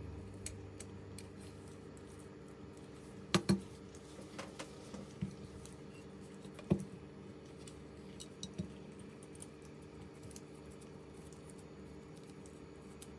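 Light clicks and taps of small tools and phone parts being handled during a smartphone repair. A few sharper clicks stand out, a close pair about three and a half seconds in and one nearly seven seconds in, over a steady low hum.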